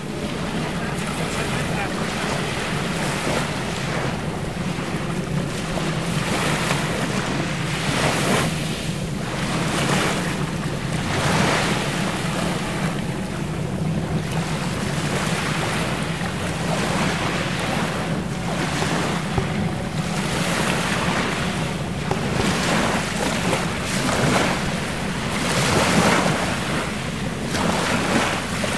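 Fishing boat's motor running steadily at sea, under water washing and wind gusting on the microphone in irregular swells.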